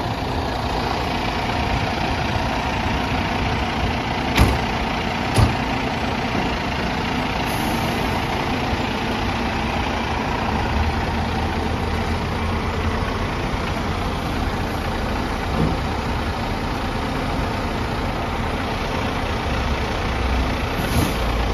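Fire engine's diesel engine idling steadily, with two sharp knocks about four and five seconds in and a deeper rumble from about ten seconds in.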